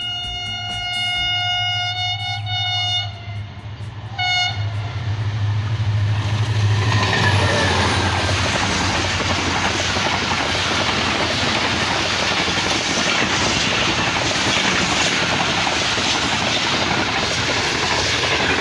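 A Pakistan Railways HGMU-30 diesel locomotive sounds its horn in a long blast and then a short one as it comes through at speed, its engine humming low. Then the coaches of the express rush past with a steady noise and wheel clatter on the rail joints.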